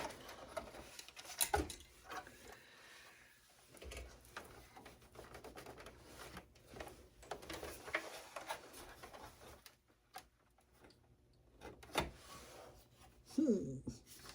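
Hands working inside a desktop computer case, pulling wiring off the motherboard: scattered clicks, knocks and rustling of plastic and metal being handled, with a few sharper knocks.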